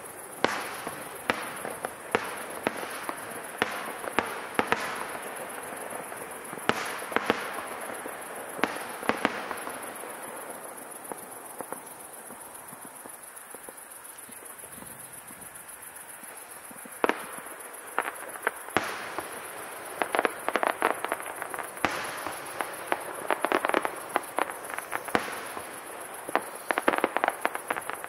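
Aerial fireworks display: shells bursting with sharp bangs. A quieter lull comes about a third of the way in, then thick runs of rapid crackling bangs fill the last third.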